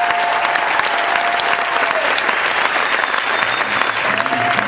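Audience applauding with dense clapping and a long held cheer over the first two seconds; music begins to come in near the end.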